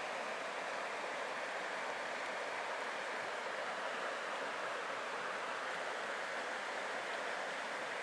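Creek water running steadily over a shallow riffle and around rocks, an even rushing hiss.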